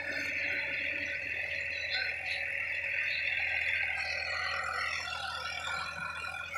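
Sonalika DI-50 RX tractor with a rotary tiller running at a distance, fainter as it pulls away, under a steady high-pitched chorus that carries most of the sound.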